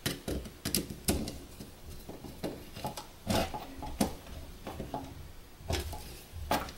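Screwdriver and fingers working wires into the screw terminals of push-button contact blocks on a metal control panel: scattered sharp clicks and light knocks, several a second at times, as screws are turned and wires seated.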